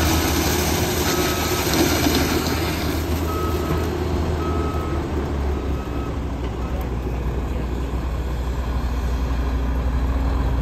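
Sugarcane harvester's diesel engine running steadily while it loads chopped cane into a cane wagon. A rushing hiss fades out about three seconds in, and a short high beep repeats roughly once a second through the first half.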